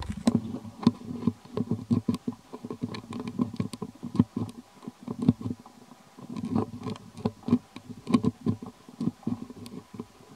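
Young long-tailed macaque chewing food close to the microphone: a run of irregular, quick clicks and soft crunching thuds with short pauses between them.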